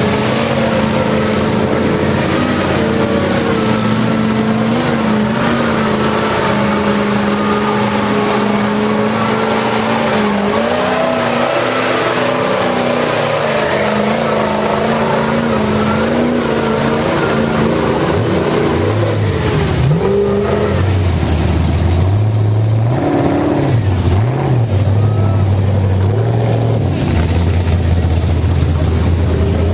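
Off-road truck's engine running hard under load, its pitch rising and falling as it revs. About two-thirds of the way through it drops lower and revs up and down in short surges.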